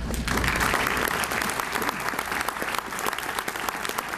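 Audience applauding: many people clapping in a hall. It starts just after the beginning and is fullest over the first couple of seconds.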